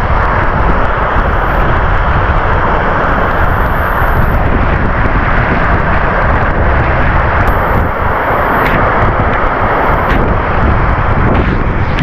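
Munduk Waterfall pouring onto rocks close by: a loud, steady rush of falling water.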